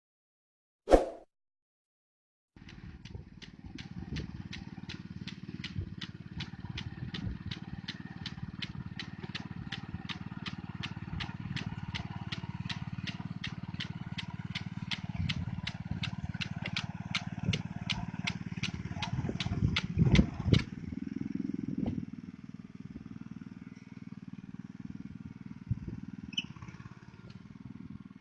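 Small engine of a rice transplanter running steadily, with a regular clicking about two and a half times a second that stops about three quarters of the way through. A single sharp thump comes about a second in, before the engine is heard.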